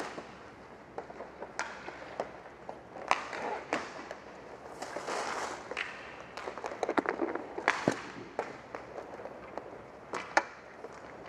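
Inline hockey play on a sport-court floor: scattered sharp clacks and knocks of sticks, puck and goalie pads, with skate wheels rolling and a longer scraping slide about five seconds in.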